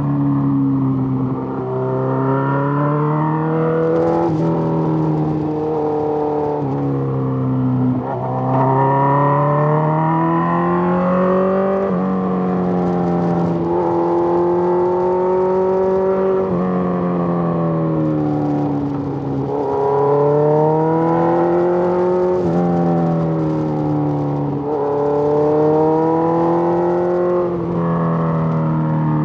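Suzuki GSX-R1000 inline-four motorcycle engine under way, its pitch rising under throttle and falling back again and again. The pitch shifts abruptly every few seconds, as with gear changes.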